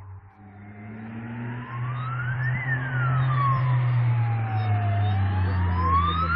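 Rally car engine approaching and growing louder, with a siren wailing over it, its pitch sweeping up and down about every four seconds.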